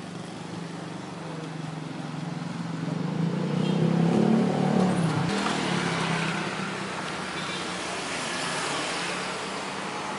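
Street traffic: a motor vehicle passes close, its sound swelling to a peak about four seconds in and fading by about six seconds, over a steady low engine hum.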